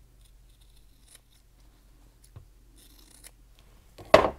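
Small sewing scissors snipping the corners off the seam allowances of sewn fabric squares: a series of quiet snips. About four seconds in comes one much louder thump.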